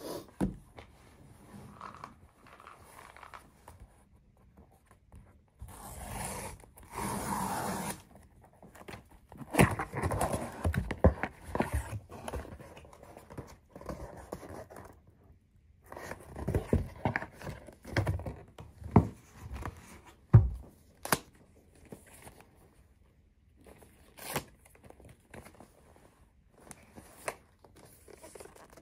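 A cardboard shipping box being opened and unpacked by hand: a long tearing of cardboard about six to eight seconds in, then rustling and scraping of cardboard flaps and packing, with several sharp knocks and clicks as the white product box is lifted out and handled.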